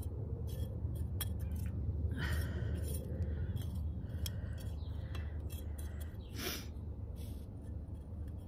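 Metal hand trowel digging and scraping in soil while hands press the earth around a seedling: a string of short scrapes and clicks over a steady low rumble.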